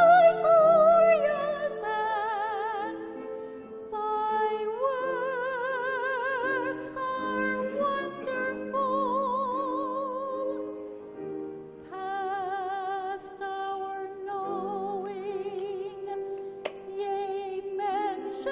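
A solo singer sings a sacred song with a wide operatic vibrato over held accompanying chords, pausing briefly between phrases.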